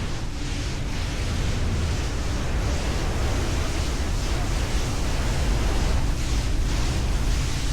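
Speedboat under way: a steady rush of wind buffeting the microphone and water spraying past the hull, over a deep low noise. The hiss swells every half second or so as the boat meets the waves.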